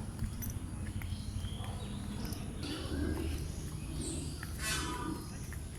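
Outdoor zoo ambience of scattered bird chirps over a background murmur of distant voices. There is one short, harsh bird call almost five seconds in, the loudest sound.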